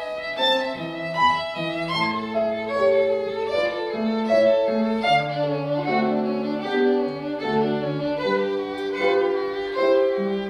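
Violin playing a classical piece with grand piano accompaniment.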